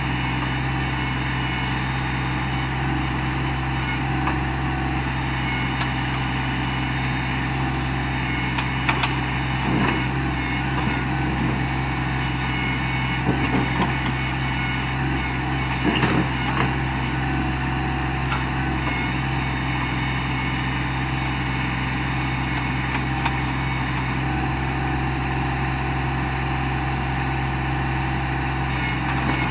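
John Deere 2025R compact tractor's three-cylinder diesel engine running steadily while the 270A backhoe digs. A few short knocks come in the middle.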